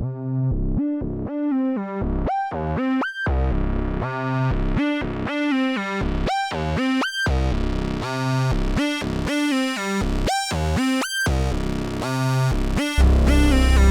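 Analog synthesizer playing a sequenced pattern of short, repeating pitched notes in a steady rhythm. About a second before the end a deep bass layer comes in and the music gets louder.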